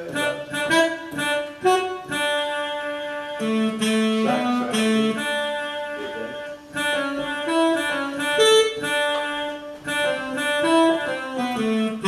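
A small live band playing an instrumental intro on digital keyboard and electric bass guitar. The keyboard plays the lead melody in held, saxophone-like notes.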